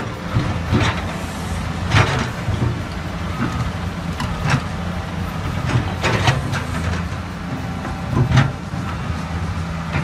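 Tracked hydraulic excavator's diesel engine running steadily while the bucket digs into a muddy trench. Several sharp clanks and scrapes stand out, spaced a second or two apart.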